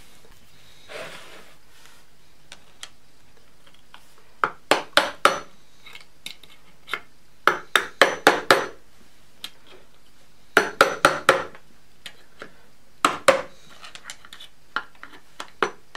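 Hammer tapping on a screwdriver set against the inside of a Lucas RS1 magneto's end plate, driving out the stuck plate. The sharp metallic taps come in groups of two to five, a couple of seconds apart, starting about four seconds in.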